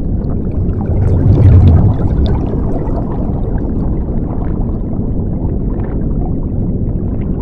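Underwater ambience sound effect: a low, steady rumble of muffled water with bubbling, swelling louder for a moment between about one and two seconds in.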